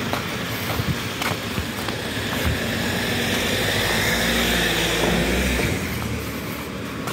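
A car passing by: its tyre and engine noise swells to a peak about four to five seconds in, then fades away.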